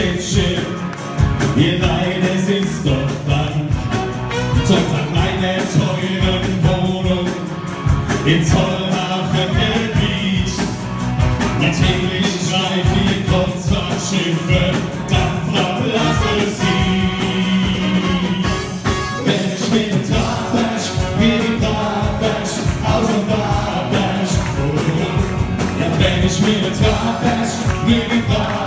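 Two men singing a comic song together into handheld microphones over music with a steady beat.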